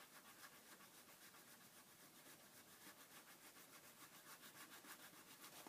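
Faint, rhythmic rubbing of a white eraser back and forth on a paper page, about five or six strokes a second, erasing red crayon marks.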